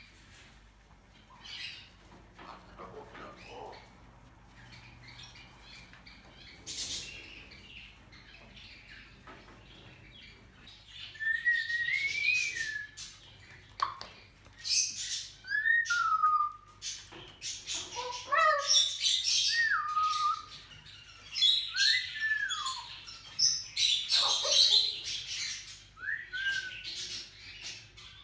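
Moluccan cockatoo calling: after a quiet start, a run of loud squawks with short whistled notes that rise and fall in pitch, one every second or two, until near the end.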